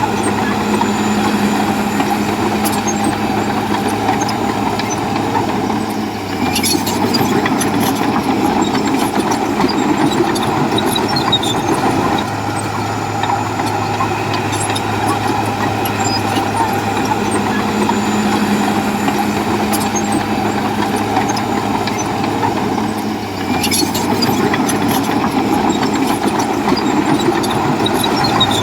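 Komatsu bulldozer's diesel engine running steadily as it works, its note shifting about six seconds in and again near 23 seconds, with a few sharp clanks from the machine and the rocks it moves.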